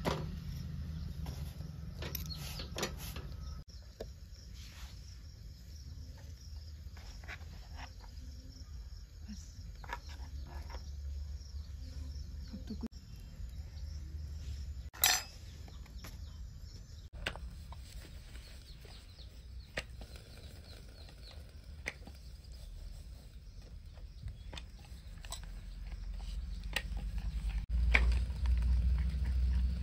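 Metal spoon clinking against small glass bowls as ground spices are added to a bowl of curd, a scatter of light clicks with one sharper clink about halfway through. Near the end the spoon stirs and scrapes the paste in the glass bowl, louder, over a steady low outdoor rumble.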